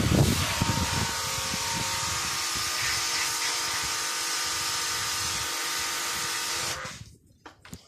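Electric pressure washer running: a steady motor hum under the hiss of the high-pressure water jet. It cuts off suddenly about seven seconds in, leaving a few faint clicks.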